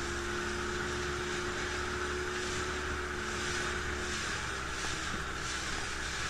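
Motorboat engine running steadily under a continuous rush of wind and water, its note changing slightly about four seconds in.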